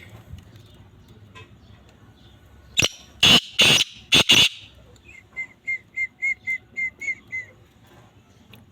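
Black francolin calling: four loud, harsh, grating notes, then a run of about nine short, clear notes at roughly four a second.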